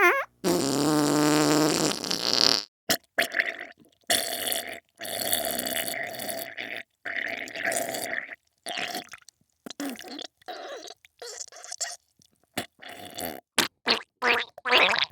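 Fart and diarrhoea sound effects: a long, pitched, buzzing fart lasting about two seconds, then a string of wet, sputtering, bubbling farts broken by short gaps.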